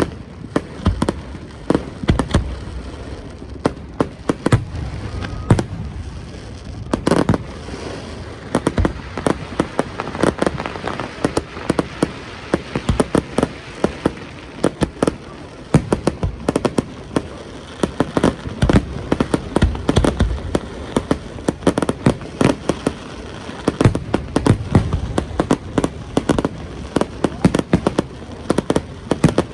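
Fireworks going off in a dense, continuous run of sharp bangs and crackles, several a second, over a steady background haze.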